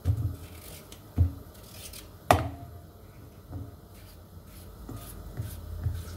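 Knife cutting raw potatoes into homemade fries, with irregular knocks and rustling on the board. The loudest knock, about two seconds in, rings briefly.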